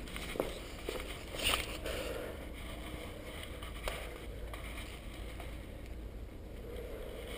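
A few soft footsteps and scuffs on a gritty concrete floor, spaced out and slowing, over a steady low rumble.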